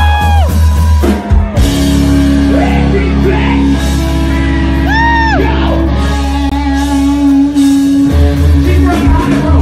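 A live rock band playing loud: bass, drum kit and guitar, with a sung vocal holding long notes at the start and again about five seconds in.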